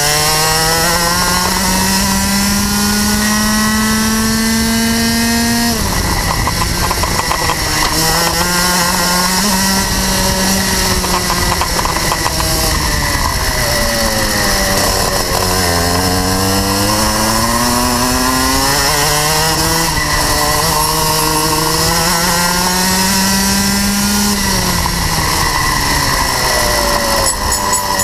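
Rotax Max 125cc two-stroke kart engine heard on board, revving up steadily for about six seconds, its pitch dropping sharply as the throttle is lifted, then rising and falling again and again through the corners of a lap.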